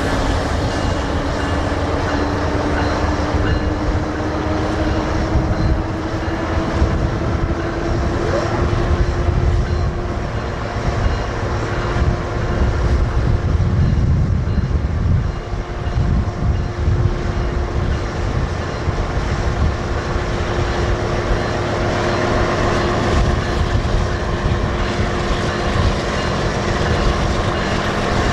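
BNSF double-stack container freight train rolling by with a steady low rumble. A droning tone rises slowly in pitch through the first half and then holds.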